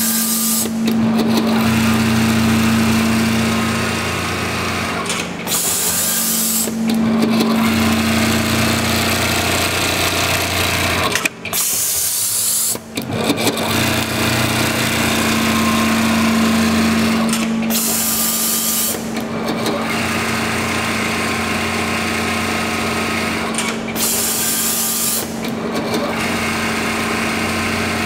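XIDO computerized template sewing machine stitching a jacket panel clamped in a clear plastic template, its needle and motor running with a steady hum. The running stops for a moment twice about halfway through, then carries on.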